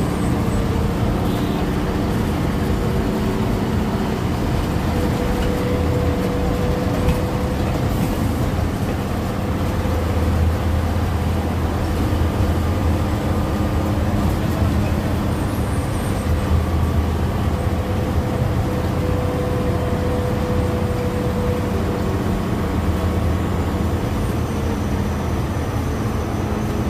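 Bus engine and road noise heard from inside the cabin of a non-AC GSRTC express bus while it is under way: a steady low rumble with a thin whine that comes and goes.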